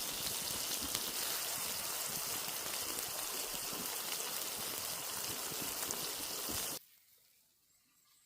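Food sizzling and spitting in hot fat over a campfire: a steady, dense hiss full of fine crackles that cuts off suddenly near the end, leaving only a faint background.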